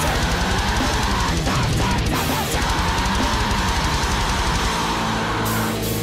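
Mathcore recording: heavy, distorted electric guitars and a drum kit, with a held chord ringing out near the end.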